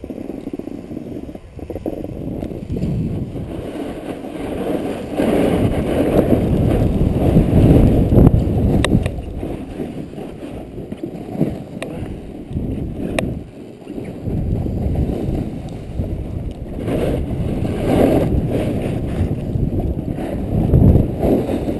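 Wind rushing over the microphone of a camera worn by a downhill skier, mixed with skis scraping over packed snow. The rushing swells and eases with each turn, and a few sharp clicks come through.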